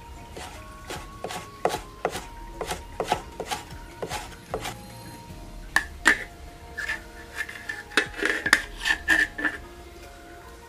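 Cleaver chopping garlic on a round wooden chopping board, about two to three strikes a second. About six seconds in, a metal spatula scrapes and clinks against an iron wok while spreading a lump of lard, with a ringing metallic tone; these clinks are louder than the chopping. Soft background music runs underneath.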